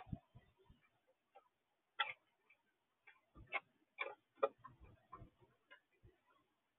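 Mourning dove pecking at seed on a bird feeder, close to the microphone: a string of irregular light taps and clicks, a few louder ones in the middle.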